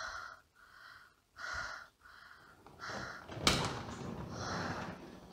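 Short breathy gasps and breaths, with one sharp bang about three and a half seconds in, the loudest sound, followed by a brief noisy rush.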